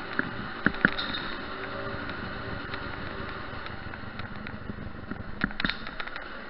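Honda 250 cc two-stroke motorcycle engine running steadily while riding. A few sharp knocks or rattles come near the start and again in a cluster about five and a half seconds in.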